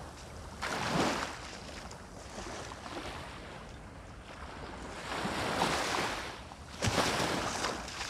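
Small sea waves washing up a sandy shore. They come in three rushing surges: about a second in, and twice in the last three seconds.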